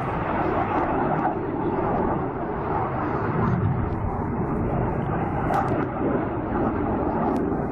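Jet engine noise from a Red Arrows BAE Hawk T1 flying by, a steady rushing sound.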